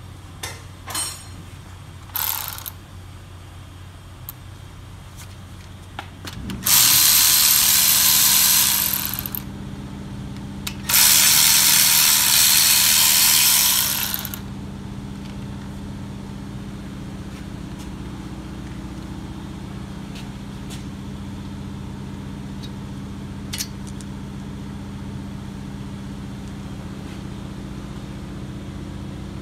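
Milwaukee cordless electric ratchet running in two loud bursts of a few seconds each, spinning the brake caliper bolts out, after a couple of short blips. A steady low hum runs underneath from about a quarter of the way in.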